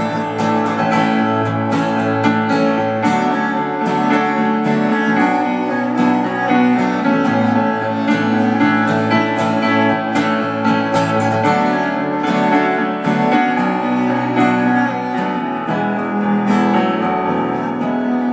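Steel-string acoustic guitar strummed in a steady rhythm, with the chord changing every few seconds: an instrumental break between sung lines of a live song.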